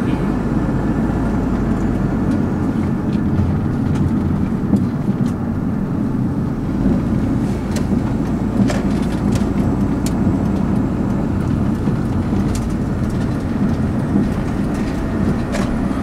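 Car interior noise while driving: a steady low rumble of engine and tyres on asphalt, with a few faint ticks. The engine's low hum changes about seven seconds in.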